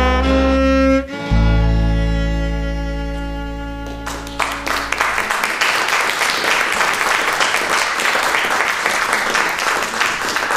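Final chord of an acoustic trio, with bowed cello, acoustic guitar and bass guitar, held and then fading. About four seconds in the audience breaks into applause that keeps going.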